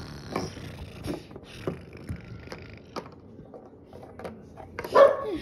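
Plastic toy animal figurines tapped and knocked against a wooden tabletop in scattered light clicks, with a short, loud vocal sound from a child about five seconds in.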